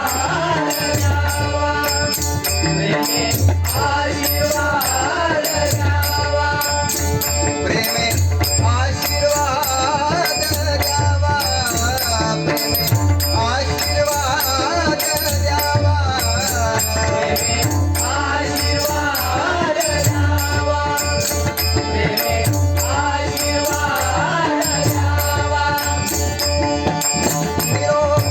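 Bhairavi devotional song: voices glide up and down over a steady rhythm of a low drum and jingling cymbals or rattles.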